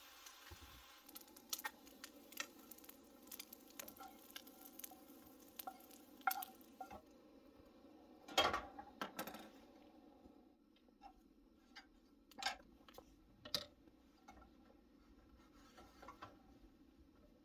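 Scattered clinks and knocks of a frying pan and utensils on a Coleman two-burner propane camp stove, over a steady low hiss from the lit burners. The loudest clatter comes about eight and a half seconds in.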